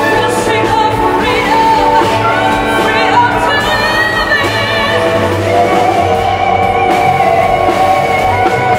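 A woman singing a gospel-style song with a soprano saxophone playing along. She sings long held notes with a wavering vibrato.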